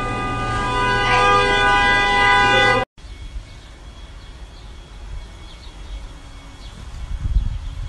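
A loud, steady horn-like tone with several pitches, held for about three seconds and cut off abruptly. A much quieter stretch follows with faint high chirps.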